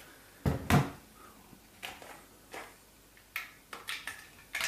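Hard plastic knocks and clicks as the knob on a Stihl MS150 TC E chainsaw's top cover is turned and the cover is lifted off the air filter. Two louder knocks come about half a second in, followed by several lighter taps and clicks.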